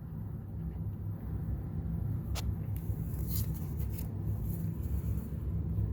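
A steady low hum, with a few faint light clicks and rustles of cardboard trading cards being flipped through by hand.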